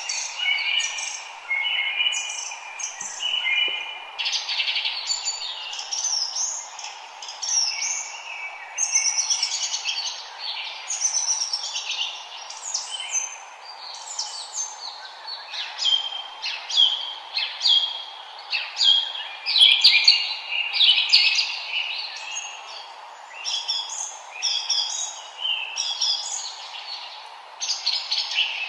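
Several songbirds singing and chirping over one another in a dense, continuous forest chorus of short high notes and trills, over a steady background hiss.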